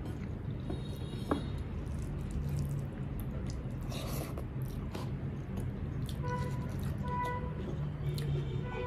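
Close-miked eating sounds: fingers squishing and mixing rice with dal on a plate, and a mouthful taken by hand and chewed about four seconds in.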